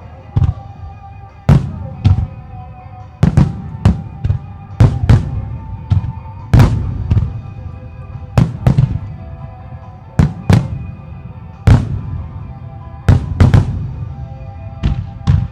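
Aerial firework shells bursting in quick, irregular succession: about two dozen sharp booms, some in close pairs, with music playing underneath.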